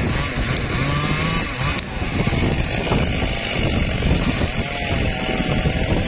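Two-stroke chainsaw running under load as it cuts through the base of a teak trunk, its engine pitch wavering, with strong wind buffeting the microphone.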